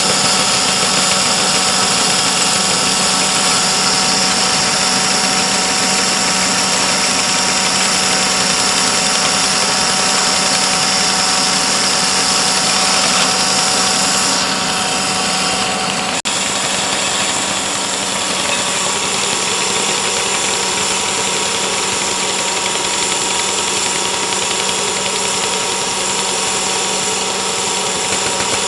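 Engine running steadily at constant speed, with a faint high hiss that drops away about halfway through and a single sharp click soon after.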